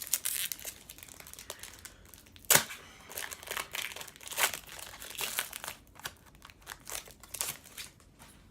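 Foil wrapper of a trading-card pack crinkling and tearing as it is opened by hand, in irregular crackles with one louder sharp crack about two and a half seconds in.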